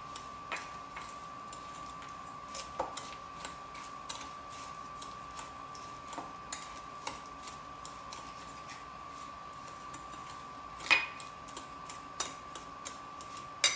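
A metal spoon clinking and scraping against a ceramic bowl while stirring mashed banana, brown sugar and egg, in irregular small knocks with a louder clack about eleven seconds in. A faint steady tone runs underneath.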